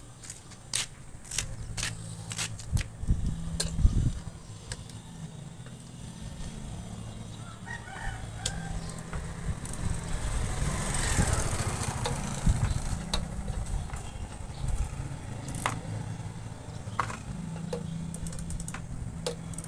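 Light metal clicks and taps of hand tools working on a motorcycle carburetor, over a steady low hum. About ten seconds in, a louder rising-and-falling sound with some hiss runs for a second or two.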